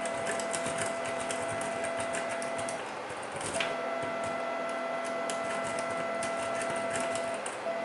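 Printer running: a steady whine with overtones and rapid light clicking. The whine stops for about a second near the middle, then starts again.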